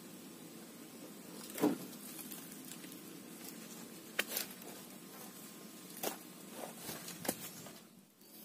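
A handful of short, sharp clicks and light knocks, scattered a second or two apart, over faint steady background noise.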